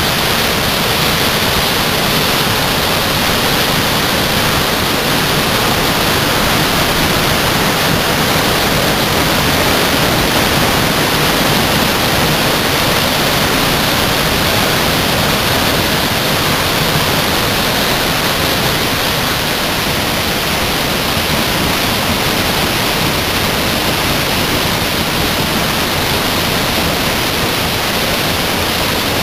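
A waterfall in full spate after heavy rain, its falling water making a loud, steady rush with no change.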